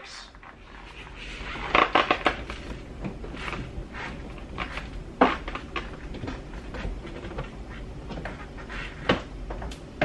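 Scattered clicks, knocks and clatter of a car battery being connected: a compartment lid and the battery cable and terminal being handled. The sharpest knocks come about two, five and nine seconds in.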